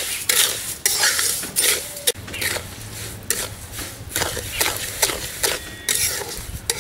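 Flat metal spatula scraping and stirring wet sugar in a metal kadhai, in repeated strokes about twice a second, as the sugar melts into syrup.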